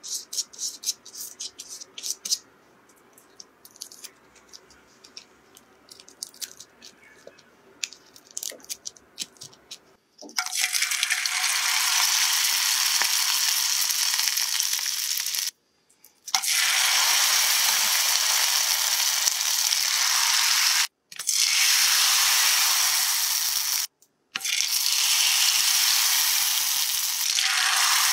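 Soft brush strokes and light taps for about the first ten seconds, then the steady loud sizzle of food deep-frying in hot oil at 160–170 °C, cut off briefly three times.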